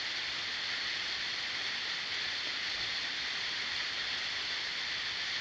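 Steady even hiss with no other events, strongest in the upper range: constant background noise of the recording.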